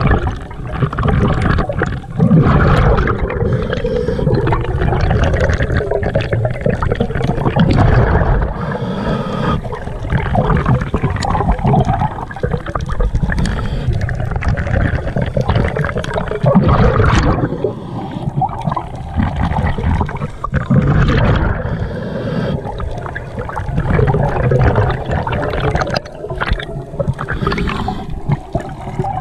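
Scuba regulator breathing heard through an underwater camera housing: exhaled bubbles gurgle and rumble in swells that come back every few seconds.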